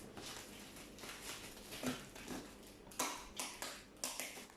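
Handling of a cardboard box being opened: a few short rustles and knocks in the second half, the loudest about three seconds in.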